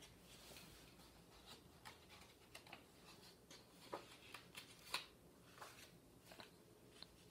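Faint rustling and small clicks of a picture book's paper page being turned by hand, loudest about four to five seconds in; otherwise near silence.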